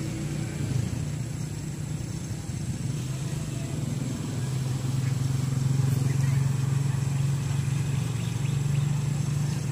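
A steady low hum of an engine running, rising a little in loudness partway through.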